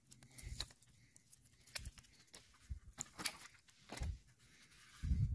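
Handling noise from the camera and the painted rifle stock: scattered faint clicks and rustles, with a low thump about four seconds in and a louder cluster of thumps near the end.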